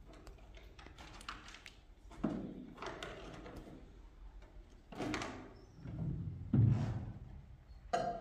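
A series of separate thuds and knocks a second or two apart, with a few light clicks about a second in. The heaviest thud comes past the middle.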